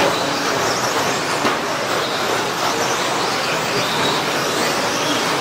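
A pack of electric 1:10 stadium trucks racing on a dirt track: their brushless motors whining and tyres scrabbling over the clay blend into a steady, loud noise, with one sharp knock about a second and a half in.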